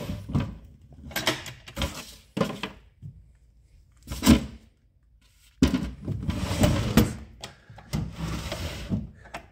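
Wooden dresser drawers sliding in and out, with knocks and scraping of wood on wood and small loose items being handled inside. A louder knock comes about four seconds in, then a short lull before a busier stretch of scraping and knocks.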